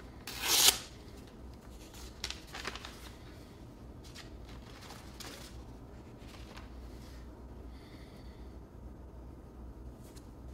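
A sheet of paper torn by hand: one loud rip lasting about half a second near the start, then softer rustles as the paper and its torn pieces are handled and set down on a wooden table.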